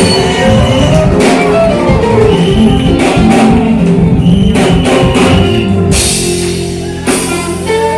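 Live worship band playing loud music with drum kit and guitar. Two cymbal crashes come over a held chord near the end.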